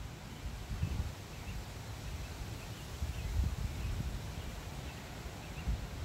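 Wind blowing through trees, leaves rustling steadily, with gusts buffeting the microphone in a low, uneven rumble. Faint, high bird chirps repeat through the middle.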